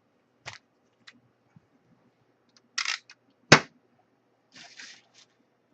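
Handling of a trading-card box and its packs on a desk: a few clicks and short cardboard or foil rustles, with one loud sharp knock about halfway through.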